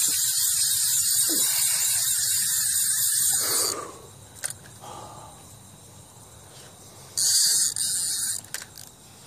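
Fishing reel's drag screaming as the kite pulls line off the spool. A long high-pitched run that cuts off after a few seconds, then a second short run about seven seconds in.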